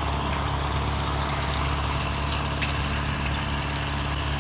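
A steady, low engine-like hum that holds the same pitch throughout, with a faint hiss over it.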